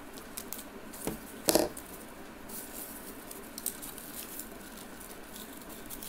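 Paper crinkling and rustling in the hands as a rolled paper rose is pressed and glued, in light scattered ticks, with one short, louder rustle about one and a half seconds in.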